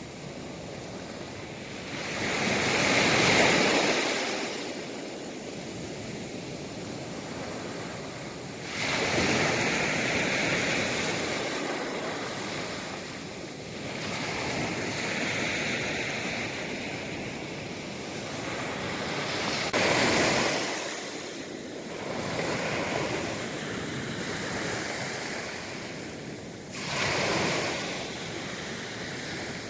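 Sea waves breaking on the shore in repeated surges, each wash swelling and then fading, the loudest a few seconds in.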